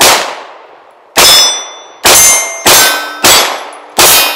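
Six pistol shots in an irregular string, each followed by a metallic ringing of steel targets being hit. The ringing after the last shot lingers and fades.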